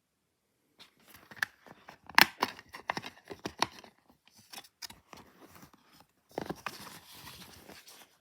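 A plastic DVD case and its packaging being handled: a run of sharp clicks and taps, then a longer crinkling rustle near the end.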